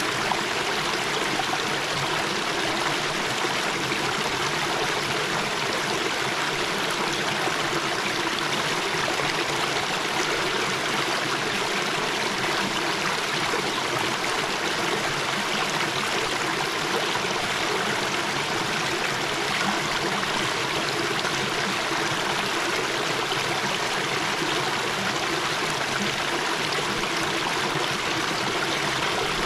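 Small forest brook babbling steadily as it splashes over a low step between mossy rocks.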